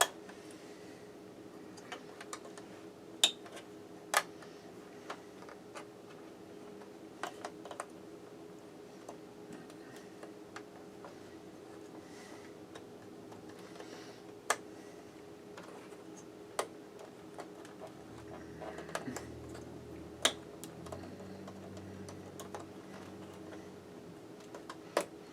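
Scattered sharp clicks and taps of hands and a tool working on parts inside an opened Macintosh LC, prying the battery loose, with a steady low hum underneath.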